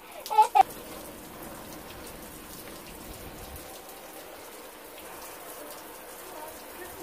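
Outdoor shower head spraying water that patters down steadily onto people and the ground, sounding like rain. A brief voice cuts in at the very start.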